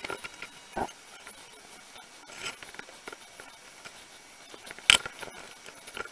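Fingers rubbing and smoothing soft clay coils together into one wall, a faint rustling and scraping. Two sharp clicks stand out, one at the start and one near the end, with a softer knock a little under a second in.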